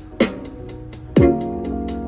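A pop song with no vocals in this passage, played back through an Anker Soundcore Motion Q Bluetooth speaker: a steady hi-hat, two deep kick-drum hits that drop in pitch, and a sustained chord that comes in with the second kick.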